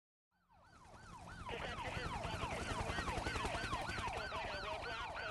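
Fast yelping siren sound effect, about three or four pitch sweeps a second, fading in over the first couple of seconds over a low steady drone, as the opening of a hip-hop track.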